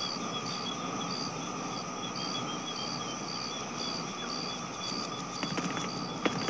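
Night-time chorus of calling insects: a short high chirp repeats about twice a second over a steady background trill and hiss, with a few faint clicks near the end.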